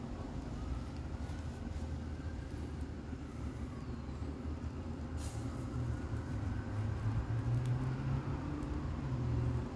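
Low engine rumble of a motor vehicle, with a steady low hum that grows louder in the last few seconds and a brief hiss about halfway through.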